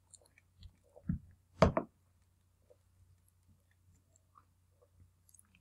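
Quiet room with faint scattered clicks and a steady low hum, broken by two short soft noises a little over a second in.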